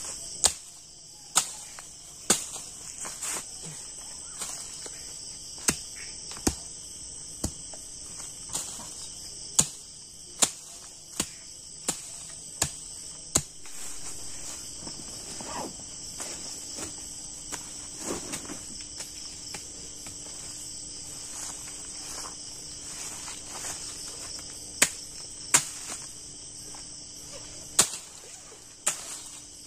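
Steady high chirring of crickets and other night insects, with sharp snaps and knocks every second or so from sticks and brush being cleared off the ground by hand.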